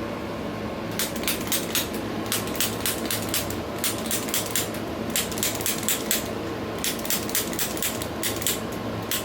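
A rapid series of sharp light clicks, about four a second, in runs of several with short pauses between them, starting about a second in.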